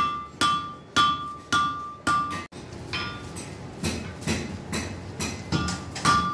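Blacksmith's hammer striking on an anvil, about two blows a second, each leaving a bright ringing tone. After a sudden break about two and a half seconds in, duller blows follow, and the ringing blows return near the end.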